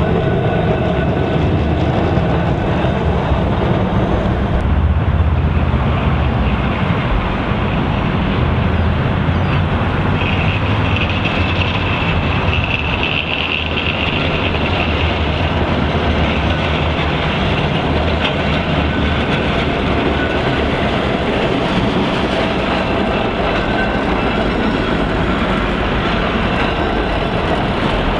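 Blackpool heritage trams running along street track: a steady rumble of steel wheels on rails, with a high squeal for several seconds around the middle.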